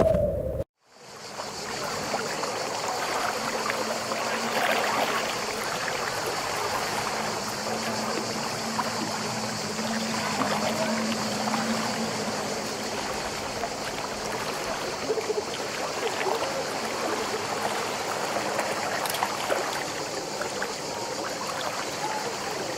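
Stream water flowing steadily, a continuous even rush, which starts right after a sudden cut from another sound in the first second.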